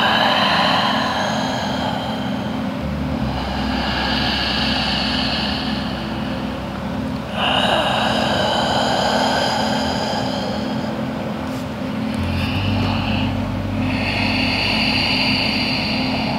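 Slow, deep breaths close to the microphone, a long swell of breath every few seconds, over a steady low hum.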